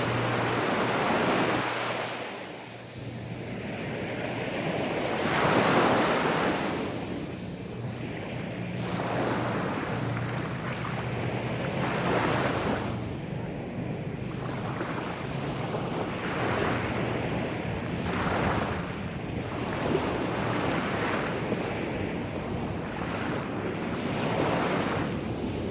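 Gentle sea waves washing onto a sandy beach, the wash swelling and falling every few seconds. A faint steady hum runs underneath.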